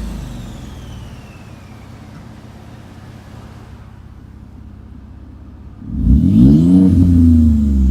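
Turbocharged engine breathing through a 4-inch MBRP exhaust with no catalytic converters. A high turbo whistle slides down as the engine drops back to idle. About six seconds in, a sharp rev brings the whistle back, rising and then falling with the engine.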